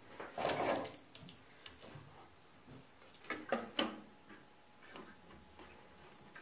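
Clamps being set and tightened on a freshly glued wooden frame: a brief scraping rub about half a second in, then a cluster of sharp clicks and knocks of metal and wood about three and a half seconds in, with scattered light ticks between.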